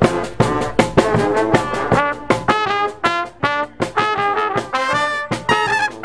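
Brass street band playing, trumpets and trombones carrying the tune over a steady beat of percussive hits.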